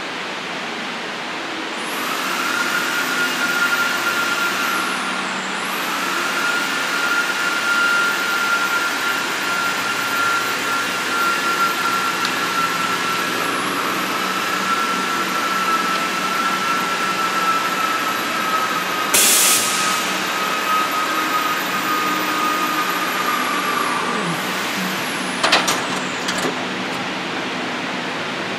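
CNC router's electric spindle running with a steady high-pitched whine, starting about two seconds in and spinning down with a falling pitch near the end. A short hiss breaks in around two-thirds of the way through, and a few clicks follow the spin-down.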